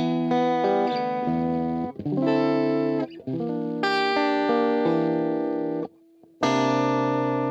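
Overdriven electric guitar played through a TC Electronic Plethora X3 in chorus mode, into a Bugera 333XL valve amp with a 4x12 cab simulation. It plays a run of changing chords, stops briefly about six seconds in, then strikes one chord that rings on.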